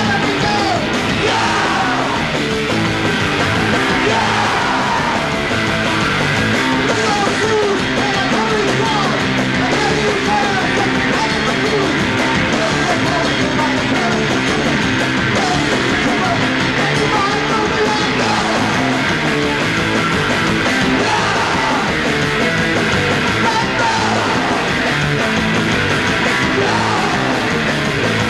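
Live punk rock band playing loudly, with a singer yelling and singing into a microphone over electric guitars.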